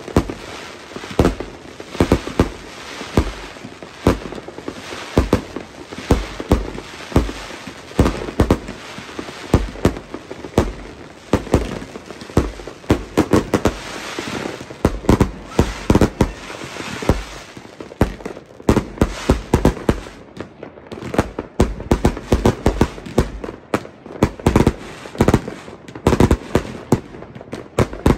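New Year fireworks going off in a dense, irregular barrage of sharp bangs from aerial shells and rockets, overlapping one another. The bangs thin out for a few seconds past the middle, then come thick and fast again.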